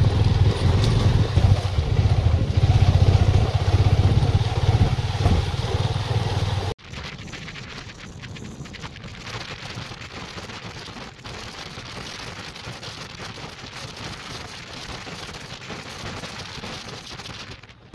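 Honda motorcycle riding over a rough gravel road, with a loud, steady low rumble of engine and road noise. About seven seconds in, it cuts to a much quieter, even hiss of wind and tyre noise on a smooth paved road.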